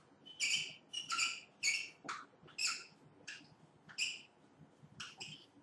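A writing tool squeaking against a board in a run of short, high squeaks, about a dozen separate strokes as the answer is written out.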